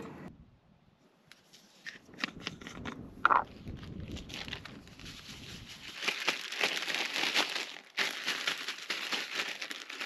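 Zip-top plastic bag crinkling and rustling as trout pieces are shaken inside it to coat them in breading, densest and loudest in the second half. A brief loud crackle stands out a little over three seconds in.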